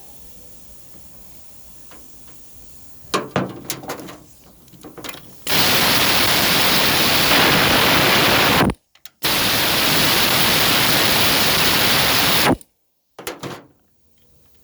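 A few sharp knocks and clatter, then two loud bursts of steady rushing hiss, each about three seconds long, that start and stop abruptly with a short break between them.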